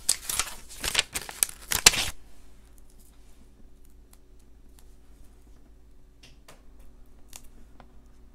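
Crackling and rustling of a glitter heart sticker being peeled off its backing sheet, a quick run of rustles over the first two seconds. After that only a few faint taps follow.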